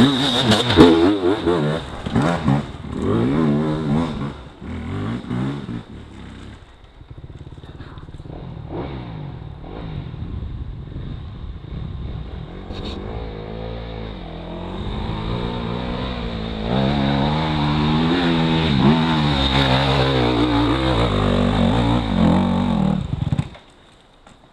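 Off-road dirt bike engines revving hard and unevenly as the bikes climb a steep dirt slope, the pitch wavering up and down with the throttle. The revving eases off for several seconds in the middle, builds again to a steady high, and cuts off suddenly near the end.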